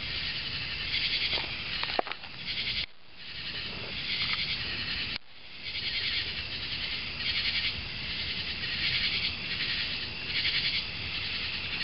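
Crickets chirping steadily in a pulsing chorus, over a low rumble of wind or handling noise.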